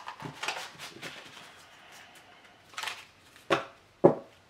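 Oracle card deck handled on a tabletop: faint card rustling, then a few short sharp knocks, the two loudest about half a second apart near the end, as the split halves of the deck are knocked against the table.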